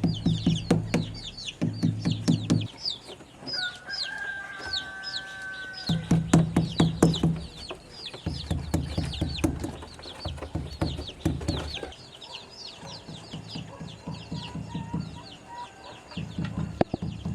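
Chickens clucking with a constant fast, high peeping of chicks, and a rooster crowing once, about three and a half seconds in. Background music runs underneath.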